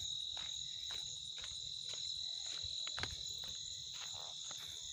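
Night chorus of crickets, a steady high-pitched trill, with the soft crunch of footsteps on a dirt path about twice a second.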